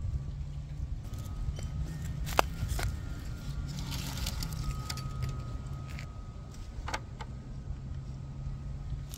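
Handling noise of a camera being picked up and carried: scattered knocks and clicks, two close together a little over two seconds in and another near the end, over a steady low outdoor rumble.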